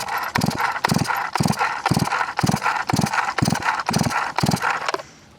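Footsteps crunching through dry brush at a steady walking pace, about two steps a second, stopping near the end.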